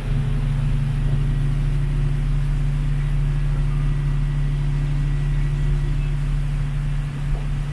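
Boat engine running steadily under way, with a brief dip in level near the end.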